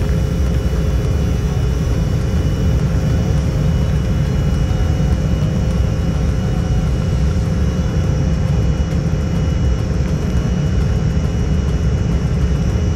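Jet airliner engine noise: a steady low drone with a few steady whining tones running through it.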